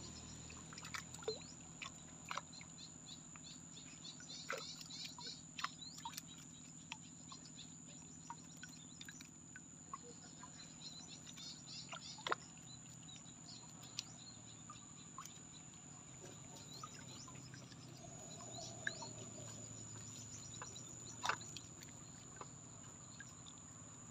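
Faint outdoor ambience: scattered short chirps and clicks, a few sharper ones standing out, over a steady high thin whine.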